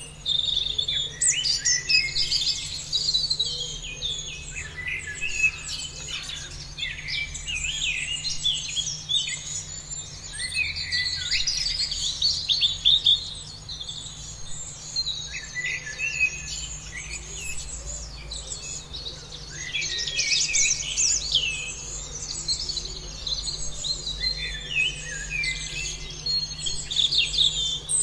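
A chorus of songbirds singing and chirping at once: many quick high chirps and trills overlapping without a break, over a faint steady low hum.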